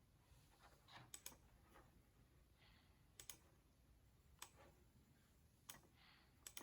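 Near silence with faint, sharp clicks, about seven spread through it, some in quick pairs.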